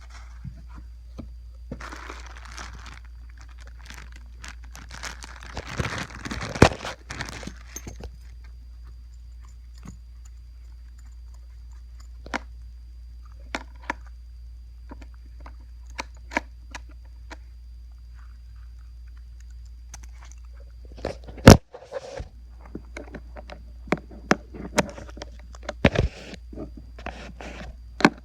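Handling noise from unpacking: packaging rustling and crinkling in two spells early on, then scattered light clicks and knocks, with one sharp loud click about three quarters of the way through, over a steady low hum.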